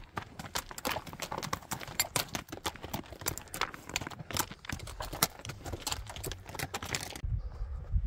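Horse's hooves clopping and clattering on a rocky trail, many irregular sharp clicks a second. About seven seconds in, this cuts off and gives way to a low wind rumble on the microphone.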